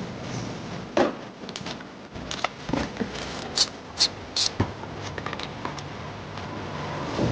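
Clicks, knocks and short scrapes of hand work on a car's intake air pipe as it is being taken off, with three quick, hissy scrapes about halfway through.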